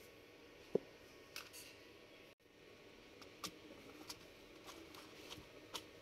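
Faint handling sounds of a 2.5-inch SATA SSD with rubber drive rails being fitted into a ThinkPad T420s's drive bay: a few light clicks and taps of plastic on plastic. A sharper click just under a second in is the loudest.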